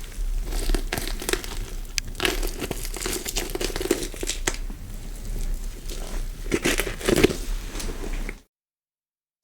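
Horror gore sound effect: irregular crackling, crinkling and tearing noises in uneven bursts, cutting off abruptly near the end.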